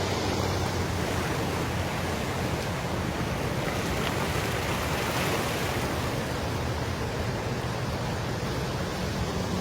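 Steady rush of a flooded creek running high and fast after storms.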